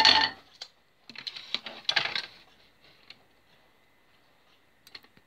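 Frying pan and spatula clattering on a gas hob: one sharp knock at the start, then a run of lighter knocks and clicks about a second in.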